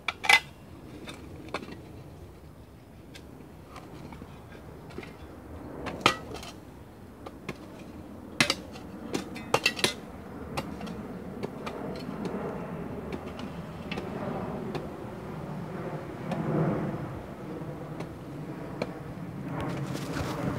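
Digging around the root ball of a pine sapling in stony red soil: scattered sharp metallic clinks and scrapes of a spade working in the earth, a few strokes in the first half. The second half has a low rustling of branches and close movement.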